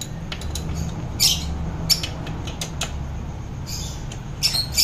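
Hand wrench clinking and scraping on a motorcycle's rear chain adjuster bolt as it is turned to set the chain tension. It makes a few sharp, irregular metallic clicks, the loudest just over a second in and near the end.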